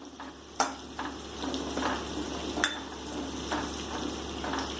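Small onions frying in sesame oil in a kadai with a steady sizzle, stirred with a spatula that scrapes and taps against the pan several times.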